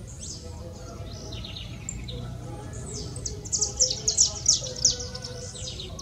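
A small finch singing: faint chirps and a short wavering whistle at first, then from about three seconds in a loud, fast run of high, sharp notes lasting about two and a half seconds, over a low steady background rumble.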